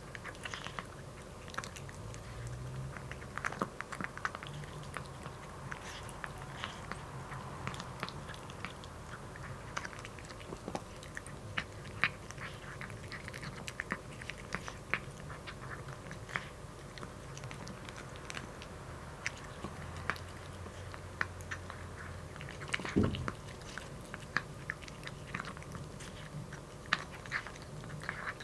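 A kitten crunching dry kibble from a tilted clear bowl: a steady run of irregular small crunches and clicks, with one duller knock about three quarters of the way through.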